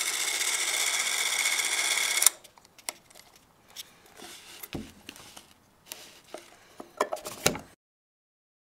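Bell & Howell 624 EE Autoset 8 mm movie camera's spring-wound clockwork motor running with a steady whirr for about two seconds, then stopping. After it come scattered clicks and rattles of the camera being handled, with a few sharper clicks near the end.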